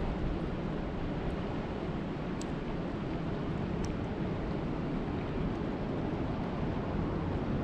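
Steady rushing of lake water, with wind rumbling on the microphone and a couple of faint ticks.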